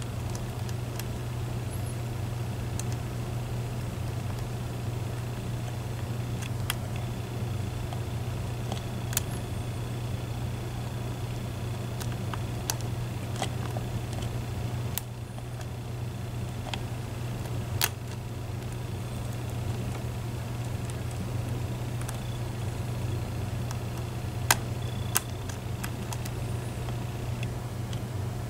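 Scattered light clicks and ticks, a dozen or so at uneven intervals, of a lock pick working the pins of a Medeco Biaxial lock cylinder, over a steady low hum.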